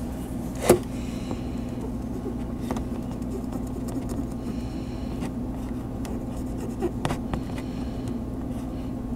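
Light scrubbing and small clicks as a cotton swab with alcohol wipes old thermal paste off a laptop CPU and heat sink, over a steady low hum; a sharp click about a second in and a couple more near the end.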